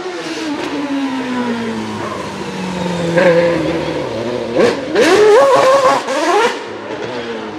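Sauber C32's Ferrari 2.4-litre V8 Formula 1 engine, its pitch falling steadily over the first three seconds as the car slows for a corner. Then the revs climb steeply and waver high for about a second and a half, the loudest part, as the car accelerates away.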